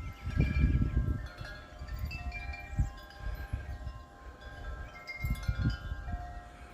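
Wind chimes ringing in the breeze, many pitched tones overlapping and fading, with low gusts of wind buffeting the microphone.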